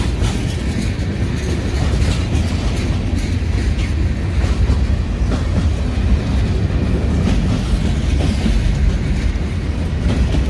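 Freight train boxcars rolling past on the track: a steady low rumble with irregular clacks of steel wheels over the rails, as the train slowly picks up speed.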